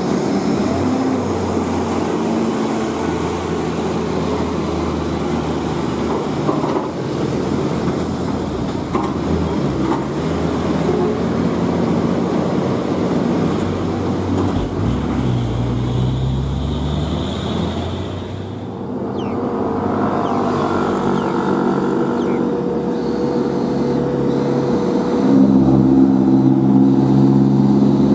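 Heavy Scania truck diesel engines working steadily under load as they haul a crawler crane on lowbed trailers past at slow speed. The engine note shifts and rises about halfway through, and a second truck grows louder near the end.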